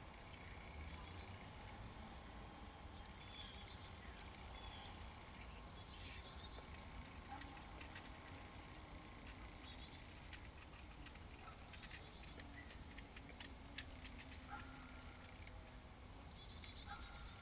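Faint outdoor ambience: a steady low rumble, with scattered faint high chirps and a run of light ticks around the middle.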